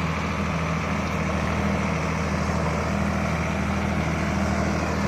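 Diesel engine of a 50 hp Sonalika tractor running steadily at a low, even speed.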